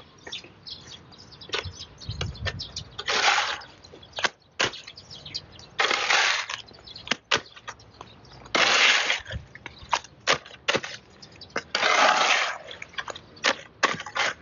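Steel shovel scraping through wet concrete mix and across a concrete slab: four long scrapes about three seconds apart, with small knocks and clinks between them.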